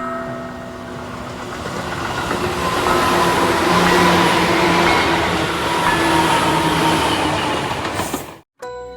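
A train passing with a rumbling rail noise that swells to a peak about four seconds in and then fades, with a few steady squealing tones. It is cut off abruptly near the end.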